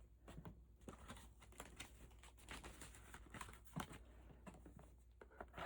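Near silence with faint rustling and light clicks of paper and plastic packaging being handled.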